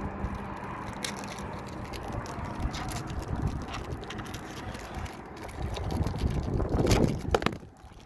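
Wind buffeting the microphone: a low rumbling noise that swells near the end and then drops away sharply, with a few light clicks through it.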